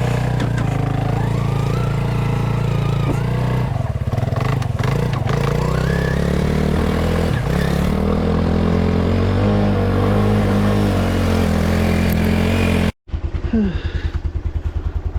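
Four-wheeler (ATV) engine running, its pitch rising and falling with the throttle. After an abrupt break near the end it putters at a steady, even idle.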